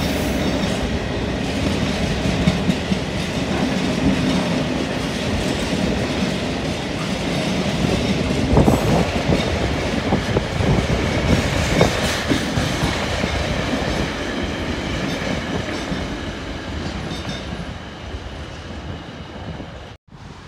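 Freight train of empty container flat wagons running past, a steady rumble with wheels clicking and clattering over the rail joints. It fades near the end as the last wagons go by, then cuts off suddenly.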